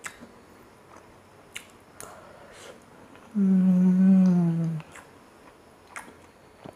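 A man hums a closed-mouth 'mmm' while tasting a rasgulla, held about a second and a half at a steady pitch that sinks slightly at the end. A few faint clicks come before and after it.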